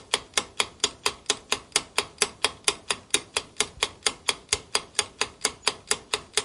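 Countdown-timer ticking sound effect: sharp, evenly spaced clock-like ticks, about four a second, steady throughout.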